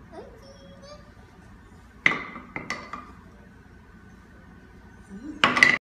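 Hard balls knocking into a beech-wood bowl and against each other. A sharp clack comes about two seconds in, followed by a few lighter knocks, and a louder quick cluster of clacks comes near the end. A small child makes a short vocal sound near the start.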